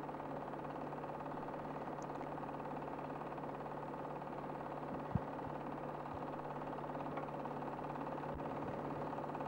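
Steady low hum and hiss, with one short click about five seconds in.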